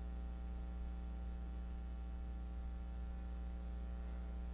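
Steady electrical mains hum: a low drone with a ladder of faint, evenly spaced higher tones above it, unchanging throughout.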